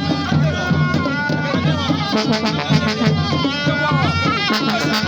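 Traditional music: a wavering, bending melody over a steady, loud beat of drum strokes.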